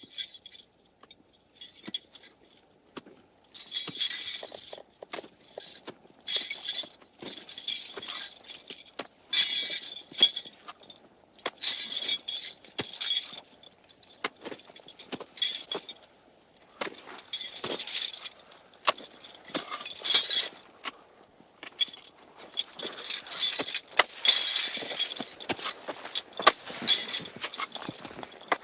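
Small hard objects clinking and jingling in irregular shaken bursts of a second or two, with bright ringing tones and many sharp clicks between short pauses.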